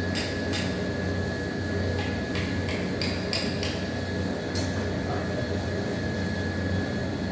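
Light metallic clicks and clinks of steel brake shoe hardware being handled and fitted on a diesel forklift's drum brake backing plate, a scattered run of them that is thickest between about two and four seconds in. Under it runs a steady low hum and a thin steady high tone.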